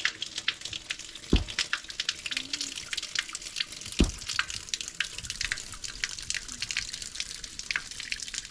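Water splashing and dripping in quick, irregular little spatters. Two dull thumps come about a second and a half in and again around four seconds in.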